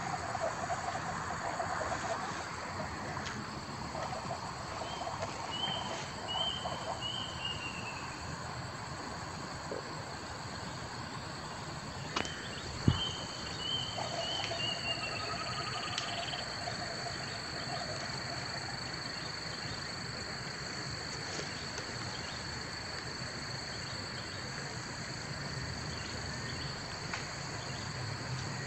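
Origami paper being handled and creased, against a steady insect-like buzz and short runs of bird chirps in the background. A single sharp tap comes about thirteen seconds in.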